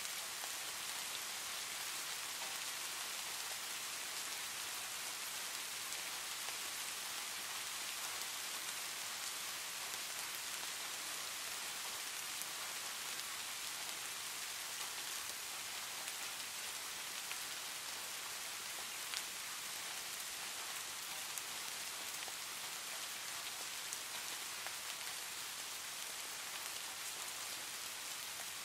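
Steady rain ambience: an even hiss of rain falling on a surface, with a few sharper drop ticks scattered through it.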